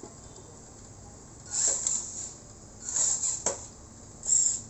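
Small electric motor and gears of a radio-controlled model dump truck whirring in three short, high-pitched bursts, with a sharp click during the second one.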